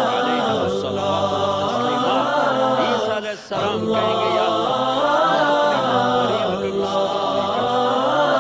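Layered a cappella voices chanting a slow melody, with no instruments. The singing breaks off briefly about three and a half seconds in.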